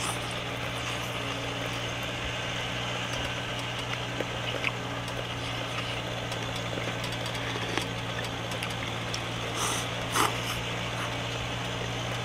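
Steady low drone of an engine-driven mud pump (máy thổi bùn) running in the background. Two short sharp clicks about ten seconds in.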